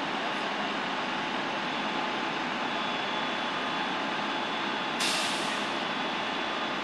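Fire engines idling with a steady drone, and about five seconds in a sudden sharp hiss of air brakes being released, fading away over about a second.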